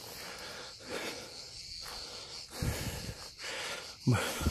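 A person breathing close to the microphone while walking, with a few soft low thumps of footfalls or camera handling.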